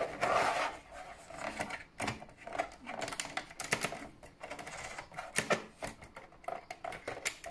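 Irregular clicking and clattering of small metal and plastic parts being handled as a PlayStation 4 Pro console is taken apart.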